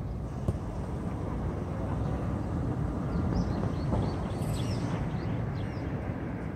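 Futsal match ambience: a steady low rumble, a sharp knock about half a second in, and a cluster of short high squeaks through the middle.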